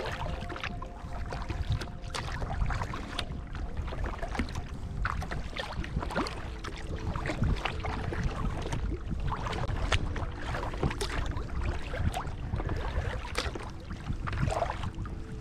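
Sea kayak being paddled on calm water: the paddle blades dip and splash irregularly, and water runs along the hull of the Dagger Stratos 14.5.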